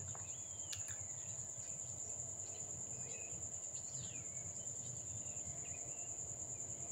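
Faint nature ambience: a steady high-pitched insect trill, with a few faint bird calls that rise and fall in pitch.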